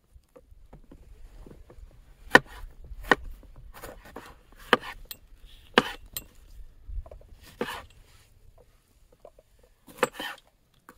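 Knife chopping green bell pepper on a wooden cutting board: about seven sharp, separate chops at an uneven pace, two of them close together near the end.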